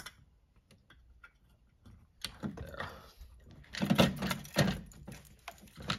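Handling noise from a fire alarm pull station being fitted onto its back box by hand. There is a click at the start and faint ticks, then a run of irregular knocks and rubbing from about two seconds in.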